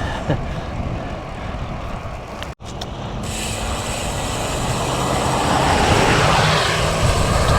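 Strong wind buffeting the microphone of a bike-mounted action camera while riding, a steady low rumble with road noise. A broad rush builds from about three seconds in, peaks near six seconds and eases, with a momentary dropout just before it.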